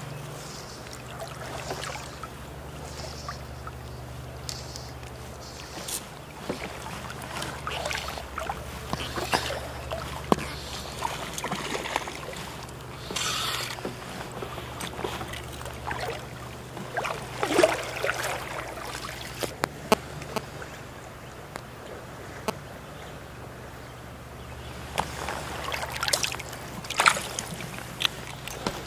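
Creek water sloshing and splashing around a wading angler, over a steady low rush of the stream, with scattered splashes as he works the line and, near the end, as he handles and releases a trout in the water by hand.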